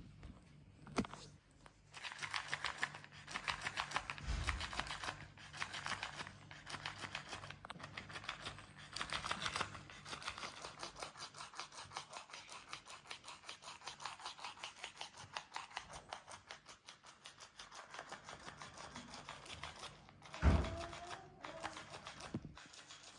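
Battery-powered flopping fish cat toy wriggling under a kitten's kicks: its motor makes a rapid, even clicking rattle, louder in the first half. A single thump near the end.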